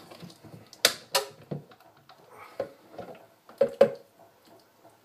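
Hard plastic clicks and knocks from a Ninja blender pitcher as its lid is unlatched and the stacked blade assembly is lifted out: a pair of sharp clicks about a second in, then a few lighter knocks, with another pair of clicks nearly four seconds in.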